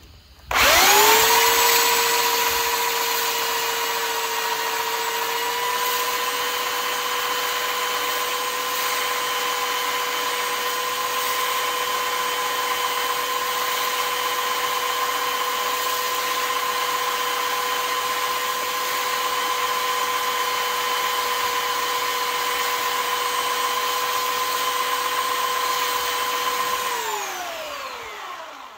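Belt sander switched on about half a second in, running steadily with a whine while a steel screw-in arrow field point is sanded down to a taper. Near the end it is switched off and winds down, its pitch falling.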